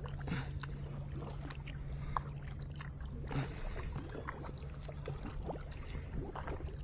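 Kayak paddle working through calm water: soft paddle strokes about half a second and three and a half seconds in, with water dripping and trickling off the blade and lapping at the hull. A low steady hum runs under it and stops about halfway.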